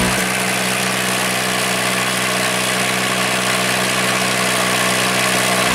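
John Deere 330 combine's diesel engine running at a steady, even note through a straight-through open exhaust pipe.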